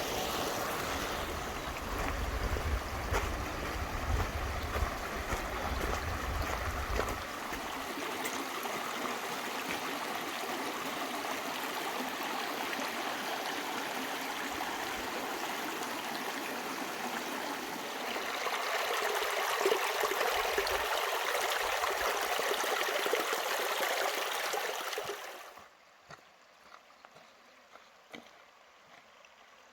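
Small mountain river rushing over boulders, a steady rush of water that grows louder about 18 seconds in. It then drops away abruptly about 25 seconds in, leaving only faint clicks.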